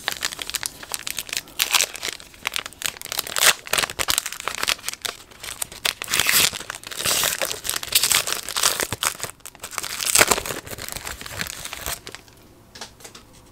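Foil wrapper of a 2020 Panini Chronicles baseball card pack crinkling as it is handled and torn open. The crackling stops about twelve seconds in, leaving a few light clicks as the cards come out.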